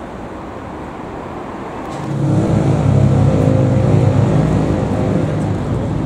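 Street traffic sound, then about two seconds in a car engine comes in loud and close and runs on with a low, fairly steady drone that wavers slightly in pitch.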